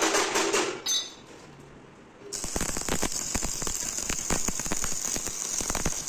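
Stick (arc) welding a steel latch bracket onto a steel door: a steady sizzling hiss with dense crackling, starting about two seconds in and lasting about three and a half seconds. A short loud burst of noise comes before it, in the first half second.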